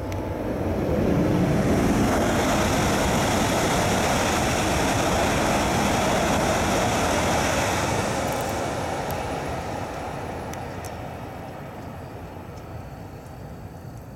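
E2 series Shinkansen bullet train passing at high speed, a loud steady rush of wheels on rail and air that holds for several seconds and then fades away.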